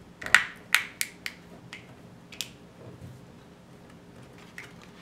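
Hollow plastic toy capsule being twisted and pried open by hand: a quick run of sharp plastic clicks and snaps in the first second and a half, one more about two and a half seconds in, then a few faint taps.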